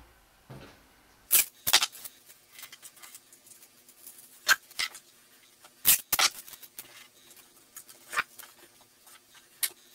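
Grey duct tape being pulled off the roll and torn in a series of short, sharp rasping bursts. The loudest come about one and a half seconds in and again about six seconds in.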